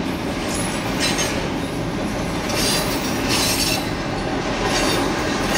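Norfolk Southern freight train's cars rolling past slowly, steel wheels rumbling and clicking over the rail joints, with short wheel squeals now and then.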